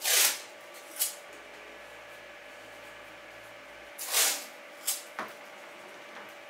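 Masking tape ripped off the roll in two short rasps, at the start and about four seconds in, with a few light clicks and taps between them.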